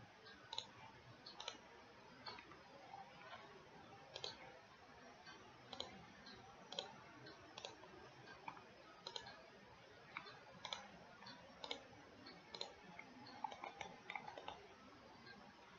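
Faint computer mouse clicks, short and at irregular intervals, roughly one every half second to second, over low background hiss.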